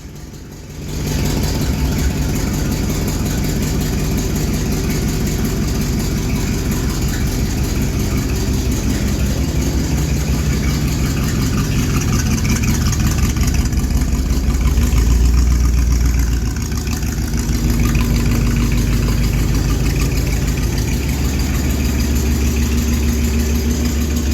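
1971 Chevy C10's carbureted 350 V8 running steadily on a cold start after sitting for months, louder for a couple of seconds a little past halfway.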